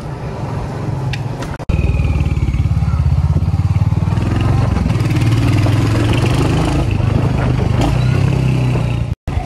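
Royal Enfield Hunter 350's single-cylinder engine running as the motorcycle is ridden, a steady low pulsing beat. It comes in abruptly about two seconds in, after a quieter opening, and cuts out for a moment near the end.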